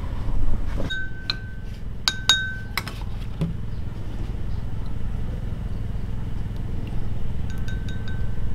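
Light clinks of a hard object that rings briefly at the same pitch each time: a cluster about a second in, then more near the end, over a steady low hum.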